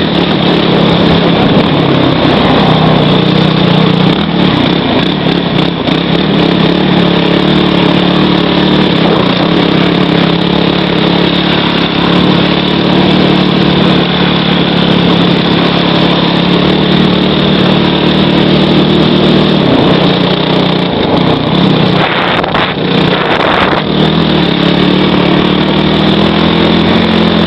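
Freshly rebuilt Kawasaki KFX450R quad's 449 cc single-cylinder four-stroke engine running under way at a fairly steady throttle, its note holding mostly even.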